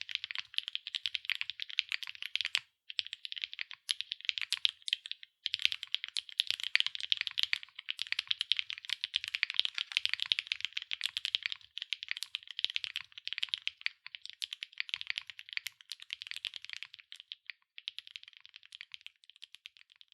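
Fast typing on a CYCLE7 mechanical keyboard with HMX x Soulcat Poro Light linear switches, an aluminium plate and PBT/ABS double-shot keycaps: a dense run of light, bright key clacks with a couple of brief pauses and a sparser patch near the end.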